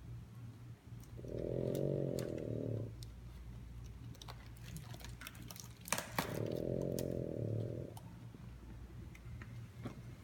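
French bulldog snoring: two long buzzing snores about four and a half seconds apart, with small clicks between them and a sharp click just before the second snore.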